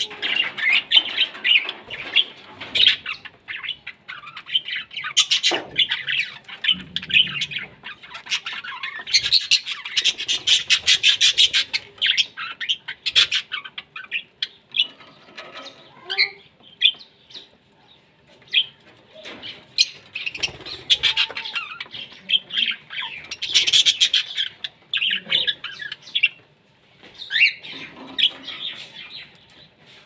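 Budgerigars and other small parrots chattering, a dense stream of rapid chirps and squawks that thins out around the middle and then picks up again.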